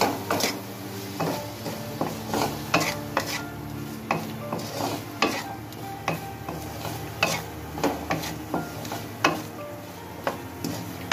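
A metal spoon or spatula stirring chicken and spices in an oiled karahi, knocking and scraping against the pan about once or twice a second, over a low sizzle of frying.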